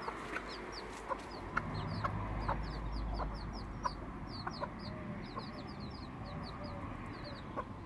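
Young chicks peeping constantly, a fast run of short, high, falling cheeps, with a few soft low clucks from a mother hen.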